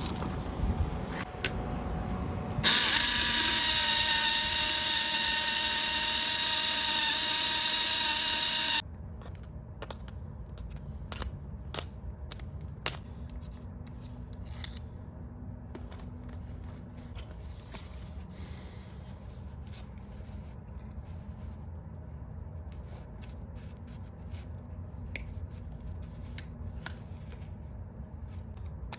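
A small electric power tool such as a drill starts abruptly, runs at a steady pitch for about six seconds and cuts off. Small clicks and scraping from hand work follow.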